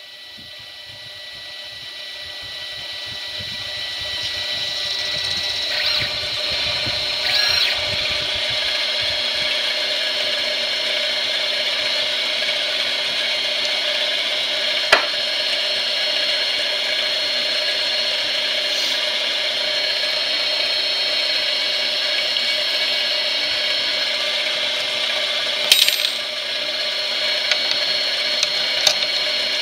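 Small variable-speed bench lathe running with a steady whine from its motor and gears while it cuts the workpiece, growing louder over the first few seconds and then holding steady. A single sharp click about halfway through and a few light ticks near the end.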